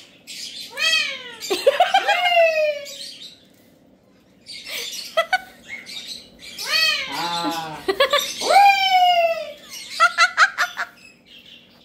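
Alexandrine parakeets squawking in harsh screeches that swoop down and back up in pitch, in two long bouts with a short pause between, then a quick run of short clipped calls near the end. The birds are squabbling.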